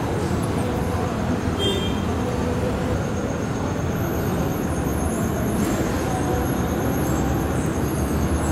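Steady low rumble of idling train machinery beside a stationary passenger train at a station platform, with a faint steady high whine joining about three seconds in.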